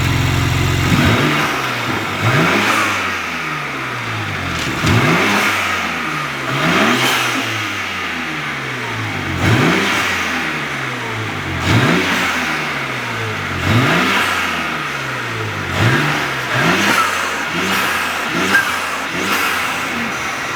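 BMW M4 G82 Competition's S58 twin-turbo straight-six, fitted with an MST cold air intake, revved in repeated blips about every two seconds, each climbing sharply in pitch and then falling back.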